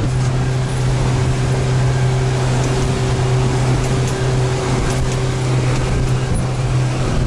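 Motorboat engine running at a steady cruising speed, a constant low drone over the rush of wind and water.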